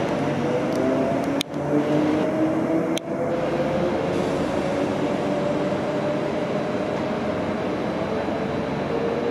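Queensland Rail suburban electric multiple unit pulling away, its motors whining in several tones that rise slowly in pitch as it gathers speed over a steady running noise. The sound breaks off abruptly twice, about a second and a half and three seconds in.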